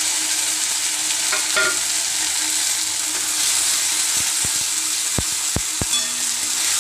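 Onions and freshly added ginger-garlic paste sizzling in hot oil in a kadai while being stirred with a spatula, which knocks against the pan several times in the second half.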